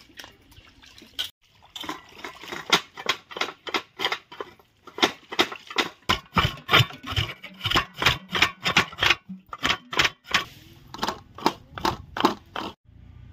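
A fast run of sharp knocks, about three to four strikes a second, in several bursts with short pauses between them.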